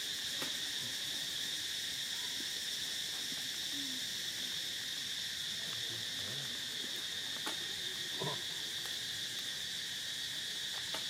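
Steady high-pitched drone of an insect chorus, unbroken throughout.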